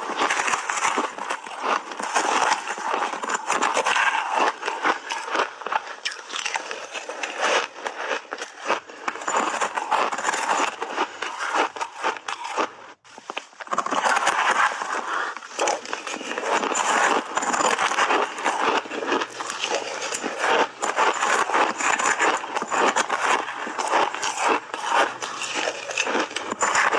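Close-up crunching and chewing of big bites of crunchy shaved ice coated in milk powder: a dense, continuous crackle of ice breaking between the teeth, with a brief pause about halfway through.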